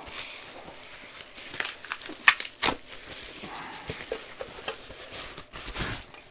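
Packaging crinkling and rustling as a boxed power supply is handled and lifted out of its box, with a few sharp crackles and a louder rustle near the end.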